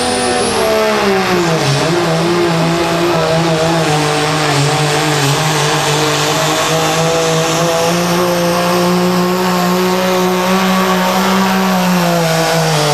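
Dodge Ram pickup's Cummins turbo-diesel at full throttle dragging a pulling sled. The engine note sags in pitch over the first couple of seconds as the sled's load builds, then holds steady under a high, constant turbo whistle, and starts to fall away near the end as the pull winds down.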